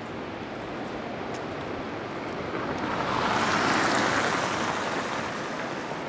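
Steady rushing of the river flowing below the bridge, with a louder hiss that swells and fades over about two seconds midway.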